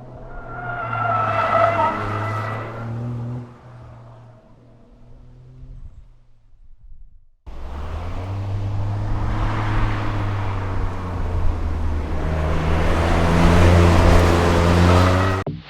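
Toyota GR Corolla's 1.6-litre turbocharged three-cylinder engine running hard during drifting, with tyres squealing. The sound drops out abruptly about halfway through, then picks up again in a longer, louder stretch of engine and tyre noise.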